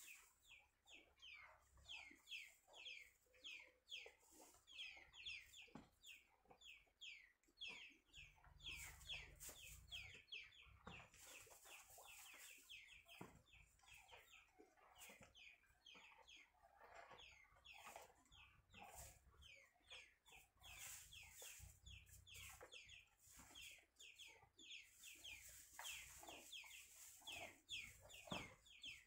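Chickens calling faintly: a steady run of short, high peeps that fall in pitch, two or three a second, with occasional lower clucks.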